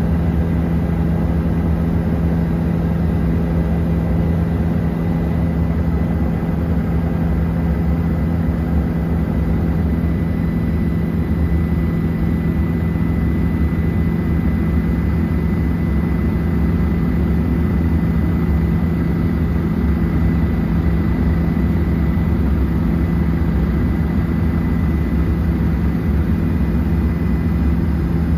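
Helicopter in flight: a steady, unchanging drone with a strong low hum and a thin high whine above it.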